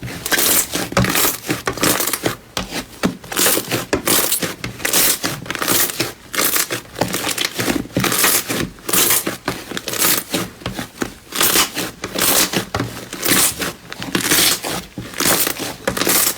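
Slime being squeezed and pressed by hand close to the microphone, giving crinkling, crackling squishes in repeated strokes, about one to two a second.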